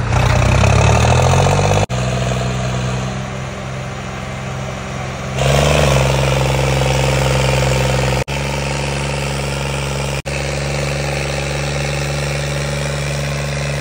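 Tractor diesel engines, a John Deere against a Sonalika, running hard under load in a tochan pull with the two tractors chained back to back. The engine note rises over the first two seconds, then gets louder and holds steady from about halfway through. The sound breaks off sharply three times for an instant.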